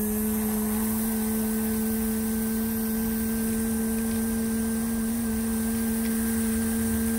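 A person's voice holding one long, steady note, sliding up briefly at its start and then held flat without a break, over a steady hiss of wind and sleet.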